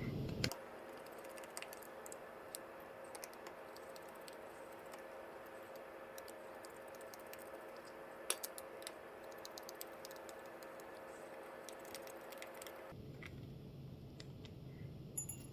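Faint, scattered small clicks and ticks of a precision screwdriver working tiny Phillips screws out of a Nintendo Switch's metal shield plate, over a faint steady hum.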